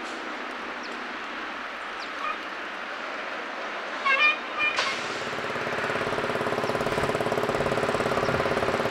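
Heavy trucks at an earthmoving site: a steady machine noise, with a few short high chirps about four seconds in. Then a dump truck's engine note grows steadily louder through the second half.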